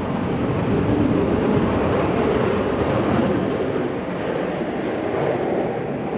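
Aircraft engine noise: a loud, steady rushing that swells slightly and then eases.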